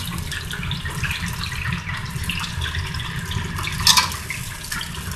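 Hot oil in a deep fryer sizzling and crackling steadily around a deep-fried soy sauce Cornish game hen, with one sharp metal clink about four seconds in as tongs take hold of the hen in the wire fry basket.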